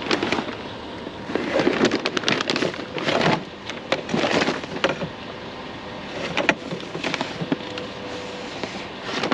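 Irregular clattering and rustling as the plastic base and tubing of a discarded vacuum cleaner are handled, in several bursts, over a steady background hum.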